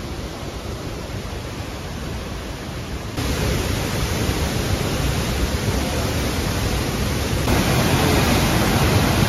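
Tall waterfall rushing into its plunge pool: a steady, even rush of falling water that gets louder in two sudden steps, about three seconds in and again about seven and a half seconds in.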